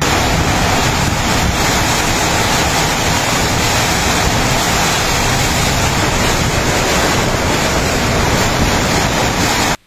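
Typhoon wind and torrential rain: a loud, steady rush with wind buffeting the microphone. It cuts off suddenly near the end.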